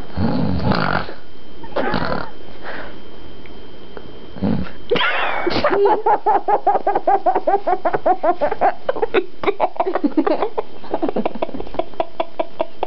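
A person making mock snoring snorts, then from about five seconds in breaking into a long fit of high, childlike laughter in rapid pulses, several a second.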